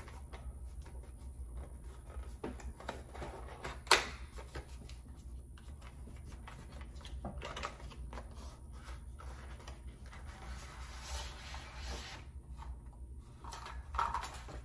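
A small cardboard box being handled and opened: rustling and scraping as its inner tray is slid out of the sleeve, with scattered light clicks and one sharp click about four seconds in.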